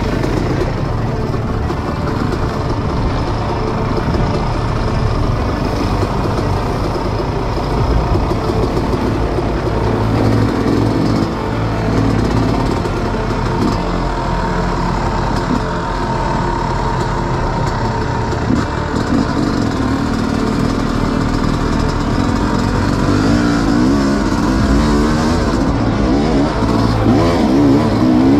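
Dirt bike engine running continuously while being ridden along a trail. Its revs rise and fall repeatedly, more so near the end.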